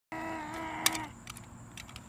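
A toddler imitating a car with his voice: a steady, held hum for about a second, with a sharp click just before it stops and a few faint clicks after.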